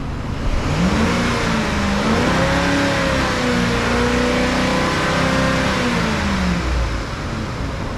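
Ford F-150's 5.4-litre V8 revved up from idle about a second in, held at raised RPM for about five seconds, then let back down to idle. The engine runs well, with good compression.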